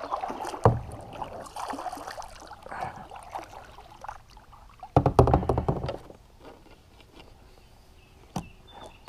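Moving about in a plastic kayak on the water: a sharp knock on the hull under a second in, water sloshing, and a louder burst of knocking and splashing about five seconds in.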